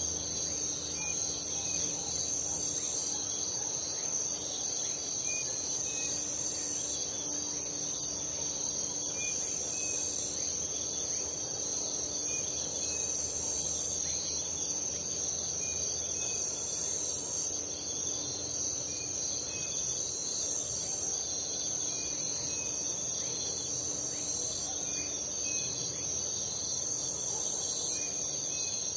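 Night chorus of crickets: a steady high trill with a faster, evenly pulsing trill above it, and another trill swelling in and out every few seconds. Scattered short chirps sound lower down throughout.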